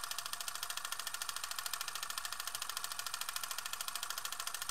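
Rapid, even mechanical clatter: a steady run of ticks, more than ten a second, mostly high in pitch with little low end.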